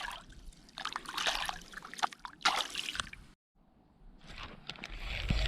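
Water splashing and sloshing in short irregular bursts, broken off by a sudden cut to silence about three seconds in, then a steady noisy rustle.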